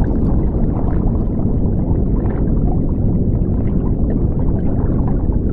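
Underwater bubbling sound effect: a steady, loud low rumble of rushing bubbles with small scattered pops.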